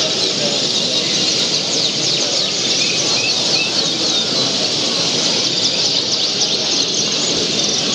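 Many caged canaries chirping and trilling together, a dense continuous twitter over a steady low hubbub of the hall.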